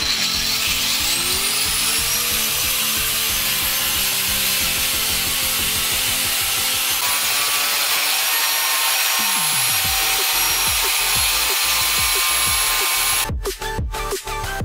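Angle grinder spinning up with a rising whine, then cutting steadily into the van's wall panel. It stops near the end, leaving background music with a beat.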